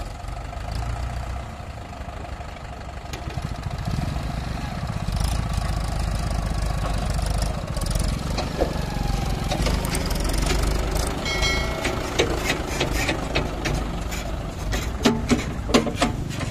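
Mahindra 575 DI tractor's diesel engine running steadily as it pulls a tipping trolley. Sharp knocks and rattles come in over the engine in the last few seconds.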